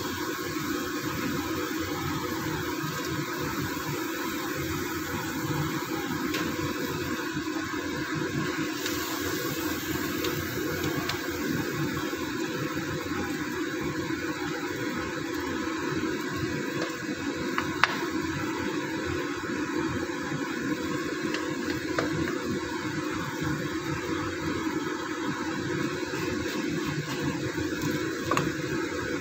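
Coconut milk boiling in a wok, a steady bubbling hiss, with a few light clicks and one sharper tap about two-thirds of the way through.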